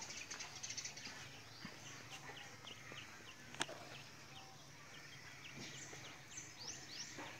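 Faint birds chirping: many short, high chirps in quick succession, with one sharp click about three and a half seconds in.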